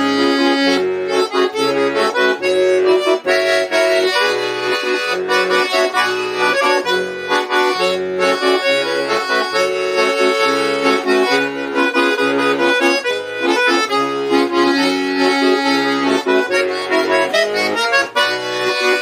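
An accordion playing a slow, song-like melody over sustained chords, with regular bass notes pulsing underneath in the left-hand accompaniment. There is no singing.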